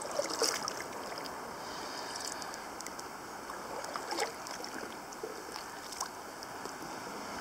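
Kayak paddle strokes in calm water: a few soft splashes and drips from the blade over a steady hiss of moving water.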